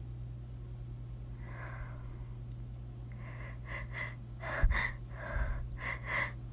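A woman's sharp, catching in-breaths building up to a sneeze: one faint breath about a second and a half in, then from about three seconds a run of short gasps that grow louder, over a steady low hum.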